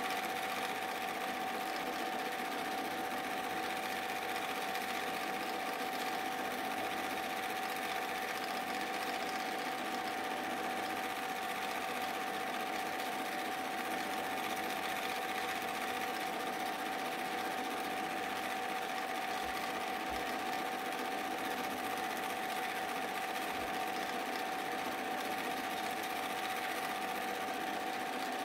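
Super 8 film projector running steadily: an even mechanical whirr with a constant tone.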